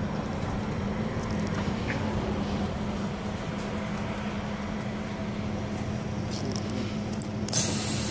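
Double-decker city bus running, heard from inside: a steady low engine drone with a constant hum. About seven and a half seconds in, a sudden loud hiss of air cuts in.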